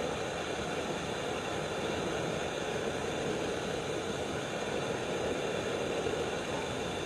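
Strawberry juice droplets sizzling steadily on a hot surface as they evaporate.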